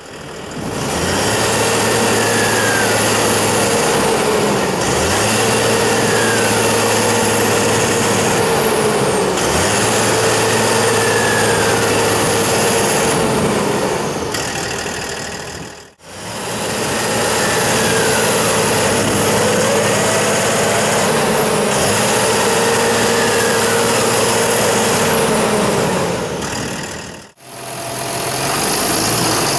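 Deutz-Fahr Agrotron tractor's diesel engine running hard, its pitch changing every few seconds, with high whines that rise and fall. The sound fades out briefly twice, about halfway through and again near the end.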